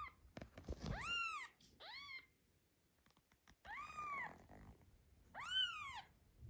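Newborn kitten mewing: four thin, high-pitched cries, each rising and falling in pitch. Two come close together near the start, then a pause, then two more.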